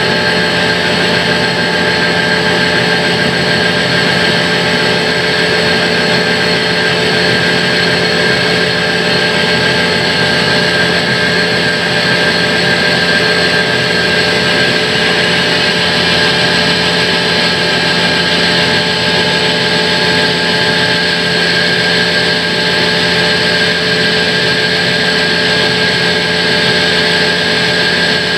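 Large sawmill band saw running steadily as a big log is pushed through it for a cut. It makes an unbroken mechanical drone with several constant tones and no let-up.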